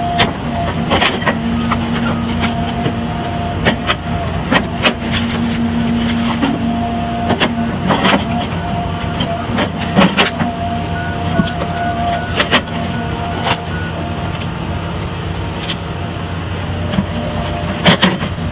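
Tree-felling harvester machine working: a heavy engine running steadily with a whine that comes and goes, and sharp knocks and clacks every second or so.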